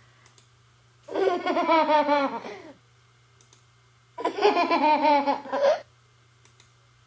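Two short clips of a baby laughing, played as sound-effect previews, each about a second and a half long with a pause between them.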